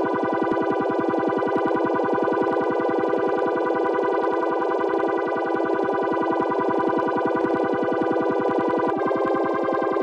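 Korg PS-3300 FS analog polyphonic synthesizer sounding a sustained chord with a fast, even pulsing. The upper notes of the chord change about nine seconds in.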